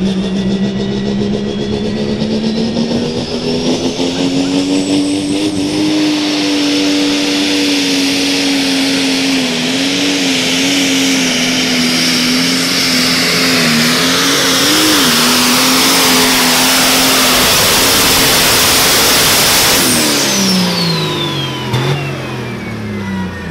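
A Case IH super stock pulling tractor's turbocharged diesel engine runs flat out under full load as it drags the sled, its pitch held high and wavering briefly mid-pull. About twenty seconds in the throttle comes off: the engine note and a high turbocharger whine both fall steeply as the pull ends.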